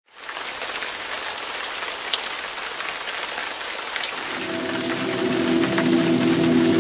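Steady rain hiss with scattered drop ticks, fading in at the start. About four seconds in, a deep ringing drone of several held tones enters under the rain and swells.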